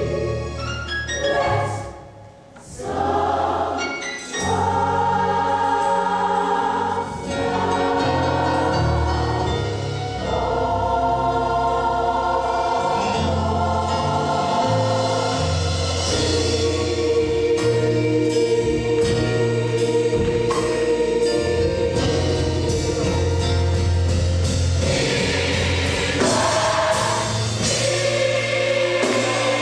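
Gospel choir singing in full harmony over a low bass line, breaking off briefly about two seconds in before coming back in.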